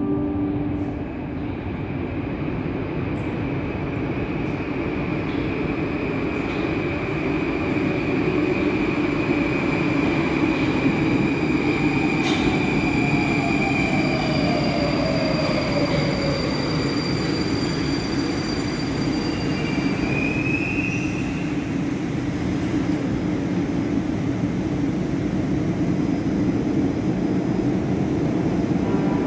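Moscow-2020 (81-775/776/777) metro train running into the station and slowing to a stop at the platform, with a steady rumble. Around the middle there is a falling whine as it slows, and a short rising tone follows a few seconds later.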